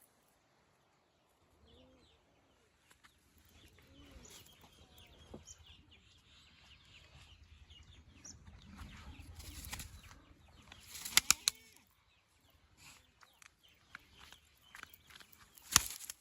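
Roller pigeons flapping their wings, starting after a short silence, with a few sharp cracks about eleven seconds in and another near the end.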